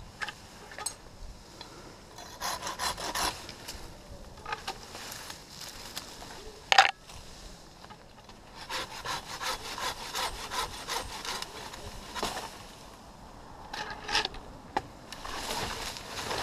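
Hand pruning saw cutting a broken oak limb in three bouts of quick back-and-forth strokes, with one loud, sharp crack about seven seconds in.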